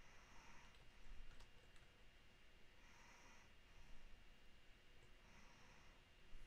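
Near silence: a person's faint breathing, three soft breaths about two and a half seconds apart.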